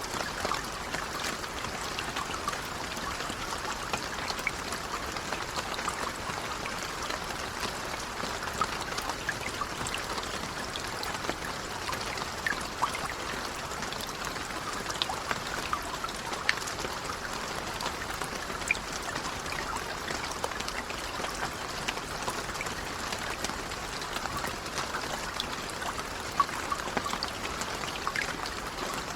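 Steady, gentle rain, with individual drops ticking sharply here and there over an even hiss of falling water.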